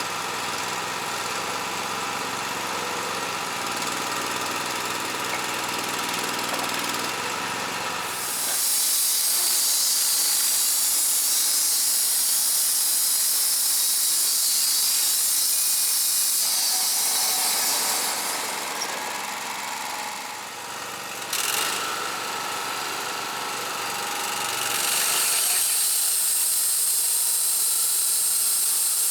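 Wood-Mizer LT35 portable band sawmill running: the engine runs steadily, then about eight seconds in the band blade starts cutting through the log with a loud, steady high hiss. The hiss drops away briefly around twenty seconds in and comes back strongly a few seconds later.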